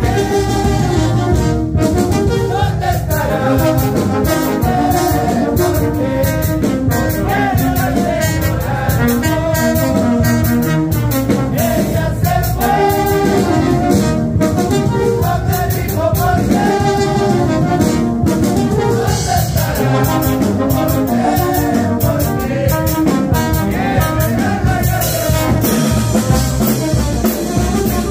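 Peruvian brass band playing live: trumpets, trombones and larger brass horns carry the tune over snare, cymbals, congas and bass drum, with men's voices singing along.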